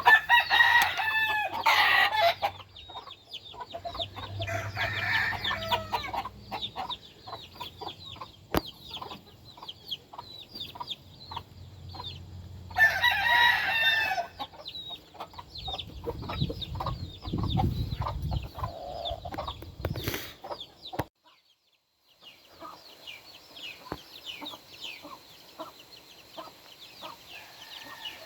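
Game roosters crowing three times, each crow lasting a second or two, over steady clucking from the flock. A low rumble comes in past the middle, then the sound drops out briefly before the clucking resumes more softly.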